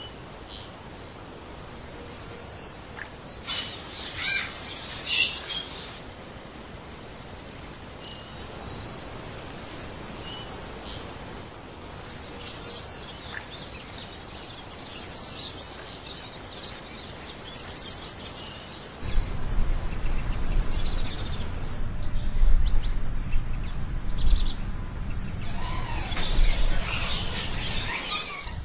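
Birds calling: a high, rapidly pulsed call of under a second, repeated about every two to three seconds, with short whistled notes in between.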